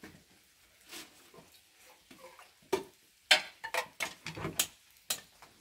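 Metal cookware being handled: a few light ticks, then a quick run of louder clanks and knocks a little past halfway.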